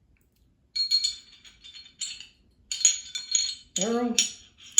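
Glock 19 Gen 5 pistol parts clinking and clicking against each other as the barrel is handled during reassembly: a run of small metallic knocks with a light ringing note, from about a second in to the end.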